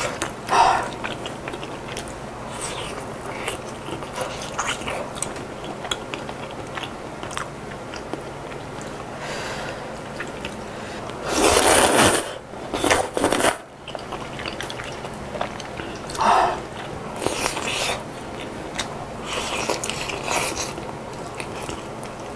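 Close-miked chewing and slurping of chicken kalguksu noodles, with two loud slurps about halfway through and a few shorter ones later.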